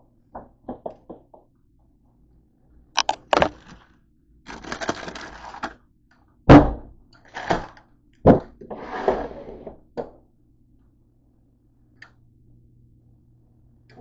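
Knocks and clatter of things being handled on a kitchen counter: a run of sharp thuds, the loudest about six and a half seconds in, with two longer noisy stretches between them. It goes nearly quiet for the last few seconds.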